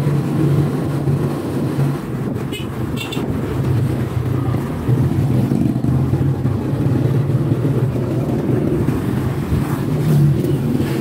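Motorcycle engine of a tricycle running steadily while the vehicle drives along the street, with road and wind noise.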